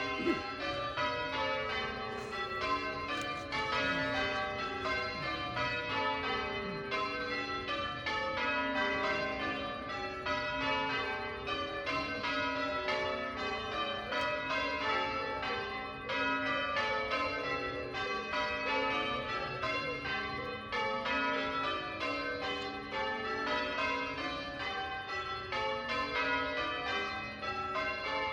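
Church tower bells being change-rung by a band of ringers: a continuous run of bell strikes in shifting order, each bell ringing on over the next.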